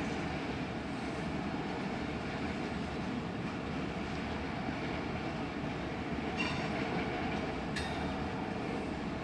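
Freight cars rolling past on the track, a steady rumble and rattle of wheels and cars, with a couple of brief sharp clicks near the end.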